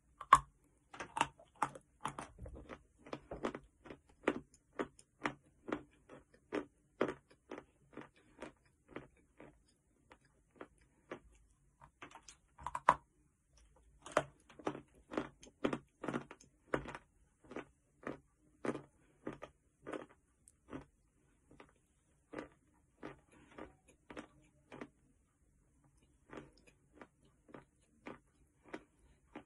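A person bites into a lump of chalk and chews it in steady strokes, about two a second. The chewing pauses for a few seconds, then a second sharp bite about 13 seconds in starts another long run of chewing, with a few more chews near the end.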